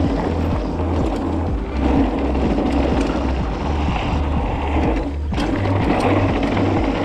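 Background music with a steady bass line, over the rolling noise and rattle of a mountain bike being ridden.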